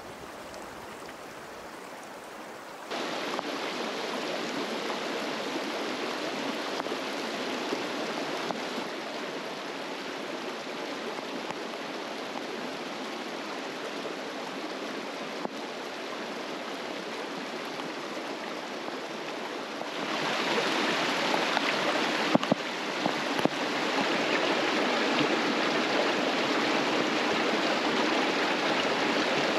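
Shallow mountain river rushing over rocks: a steady watery rush that jumps louder about three seconds in and again about two-thirds of the way through. A few sharp clicks come shortly after the second jump.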